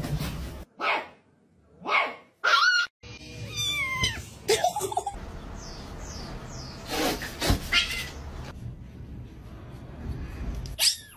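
Cats meowing in a series of short separate calls, several of them bending up and down in pitch.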